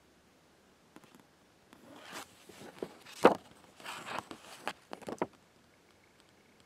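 Handling noise: a run of short rustles and clicks over about four seconds, the loudest a single sharp click about halfway through.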